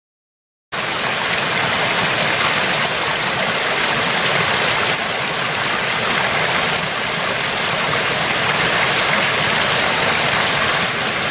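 A steady, even rush of water noise that starts abruptly after a moment of silence.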